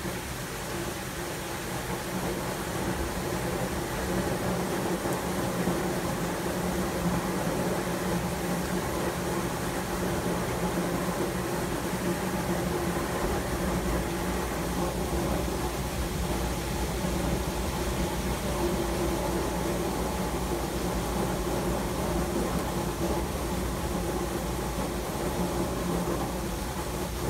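Steady hiss of rain in a thunderstorm, with a steady low hum beneath it and a deeper rumble that grows about halfway through; no sharp thunder clap.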